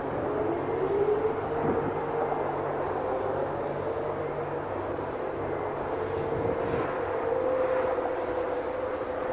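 Outdoor tornado warning sirens sounding a steady alert, several overlapping at slightly different pitches, one gliding up in pitch near the start and another rising slowly in the second half. A low steady hum lies underneath for the first half.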